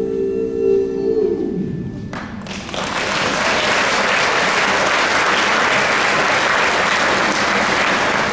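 A piece of music ends on a held note, and about two seconds in an audience breaks into applause that goes on steadily.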